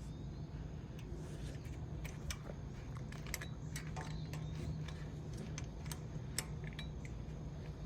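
Scattered light metallic clicks and taps as steel brake pad hardware is handled and pushed into place on the caliper, over a steady low hum.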